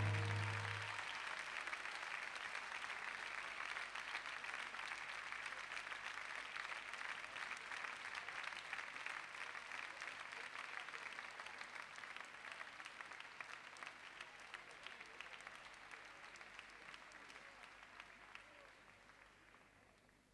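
The last note of the music dies away in the first second, then an audience applauds, the clapping slowly fading until it has nearly stopped by the end.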